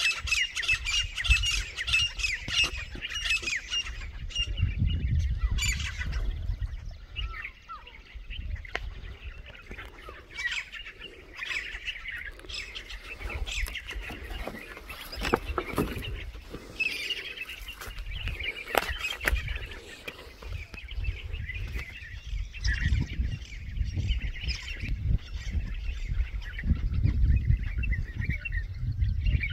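A crowd of small birds chirping, densest in the first few seconds, mixed with loud, harsh calls of grey francolins. Wind rumbles on the microphone at times.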